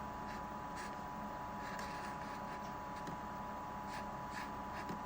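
Faint scratchy strokes of a Sharpie marker writing on a plastic cooler lid, over a steady hum with a thin steady whine.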